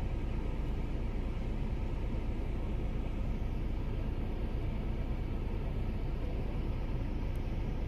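Steady low rumbling background noise with a hiss, unchanging and with no distinct events.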